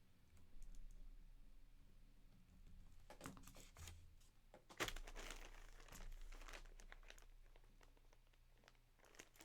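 Faint crinkling and crackling of packaging being handled, in scattered bursts with the strongest around three and five seconds in.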